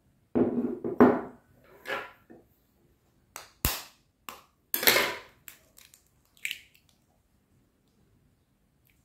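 A small ceramic bowl set down on a table with a couple of knocks, then a sharp crack as a raw egg is struck on a bowl's edge, followed by the crackle of the shell being pulled open.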